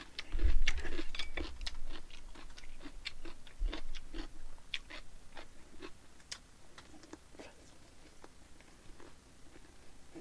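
Close-miked chewing and wet mouth clicks of someone eating a mouthful of food, with a few dull low knocks near the start. The chewing is busiest and loudest over the first few seconds, then grows sparser and fainter.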